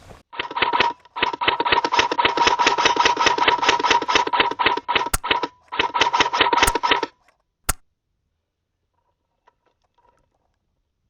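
Airsoft electric gun firing full-auto bursts: a rapid run of clicks over a steady whine, one short burst, a long burst of about four seconds and a shorter one, followed by three single sharp cracks.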